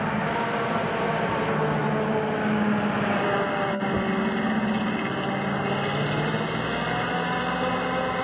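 Steady mechanical motor hum, several tones drifting slowly up and down in pitch, with a brief break about four seconds in.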